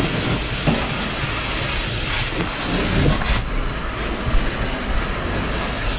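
Fire hose nozzle flowing water into a burning room, a steady rushing hiss that thins about three and a half seconds in.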